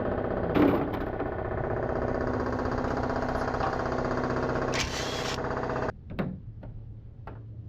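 An engine running steadily, with a short hiss about five seconds in. It cuts off abruptly near six seconds, leaving a low hum and a few scattered sharp taps and knocks.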